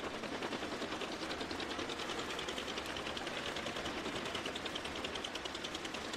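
Crane-fed wood chipper chipping a load of brush and branches: a rapid, steady clatter.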